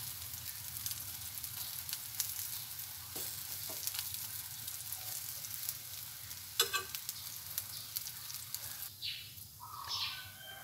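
Egg-dipped bread slices frying in butter in a non-stick pan: a steady sizzle with fine crackling. A spoon clinks against the bowl of egg mixture a few times, and the sizzle thins out near the end.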